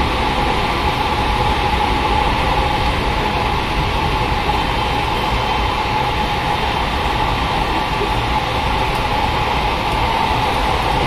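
Electric commuter train running at a steady speed, heard from inside the car: even rumble of wheels on rail with a constant running hum.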